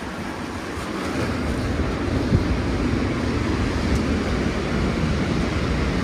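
Storm waves surging in and washing over a flooded seafront promenade: a continuous rushing of surf and water with a heavy low rumble and wind buffeting the phone microphone, swelling over the first couple of seconds, with one brief thump about two seconds in.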